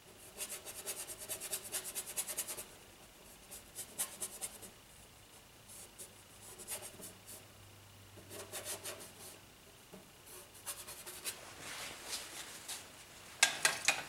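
Bristle brush scrubbing thinned oil paint onto the canvas in bouts of quick back-and-forth strokes, with short pauses between them. A few sharper taps come near the end.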